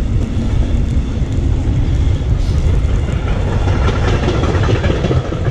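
Freight train of container wagons rolling past on the line alongside, a steady low rumble of wheels on rails.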